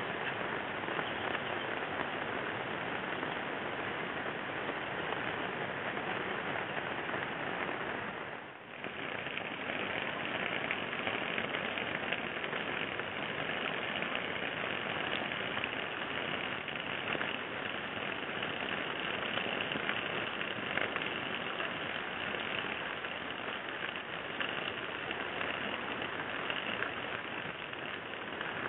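Steady rain falling on leaves and the ground, a continuous hiss that dips briefly about eight seconds in.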